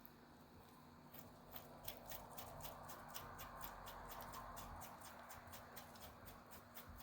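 Faint, light clicking and rattling of small hardware being handled, about three or four clicks a second, while someone looks for a washer.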